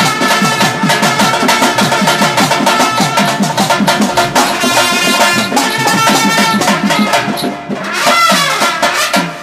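Pambai and udukkai folk drums played in a fast, dense rhythm, the drum strokes bending in pitch. The playing dips briefly and swells again shortly before it ends.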